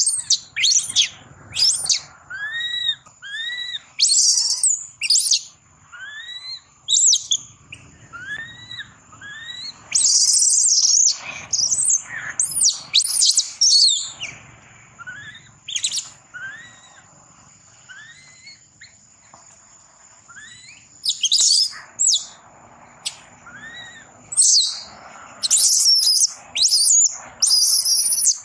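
Baby macaque squealing and crying: short, high-pitched calls that arch up and down in pitch, repeated in quick runs with brief pauses. A thin, steady high whine runs underneath through most of it.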